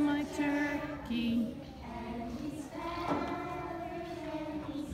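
A group of young children singing together, with some notes held.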